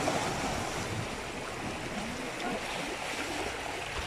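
Steady wash of waves, with wind noise on the microphone.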